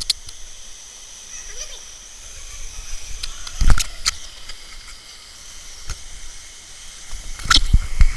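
Canyon stream rushing as a steady hiss, with a few sharp knocks and bumps against rock, the loudest about three and a half seconds in.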